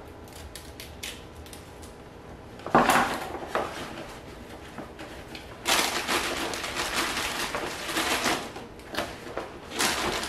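A few sharp snips of kitchen shears cutting broccoli, then a clear plastic food-storage bag crinkling and rustling as it is handled and lifted, loudest in a long stretch from about six to nine seconds in.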